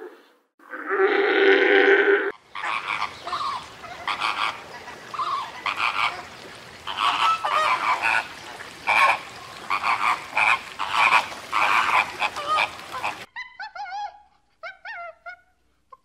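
A fur seal calling for about two seconds, then a flock of flamingos honking in short, repeated goose-like calls over a steady hiss. Near the end, a few short, quick chirps.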